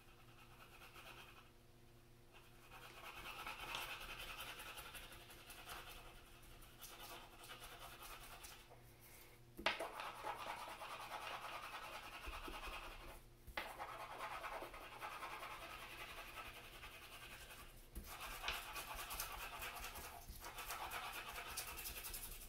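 Wax stick crayon scratching across drawing paper, colouring in stretches of quick strokes with brief pauses between; a sharp tap about ten seconds in.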